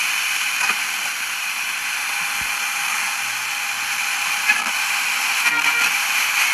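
Steady FM static hiss from a portable multiband radio's speaker as its tuning wheel is scrolled between stations, with a few faint brief blips of sound about two-thirds of the way in.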